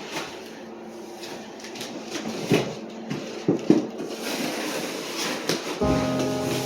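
Handling of flat-pack furniture pieces: a rustling haze with a few sharp knocks and clatters about two and a half and three and a half seconds in. Background music starts near the end.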